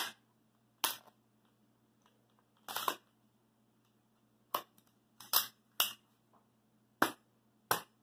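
Sharp metallic clacks, about eight spaced unevenly with one doubled, from the action of an empty AR-15-style rifle being worked by hand. The bolt carrier and charging handle clack as the action is cycled and slams closed.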